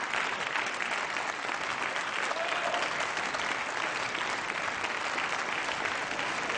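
Many people clapping steadily: applause from the seated members of a parliament chamber, marking the end of a speech.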